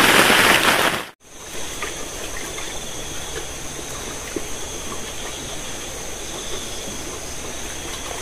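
Heavy rain falling on a shelter's roof, cut off abruptly about a second in; then a steady rush of flowing river water with a thin, steady high-pitched whine above it and a few small clicks.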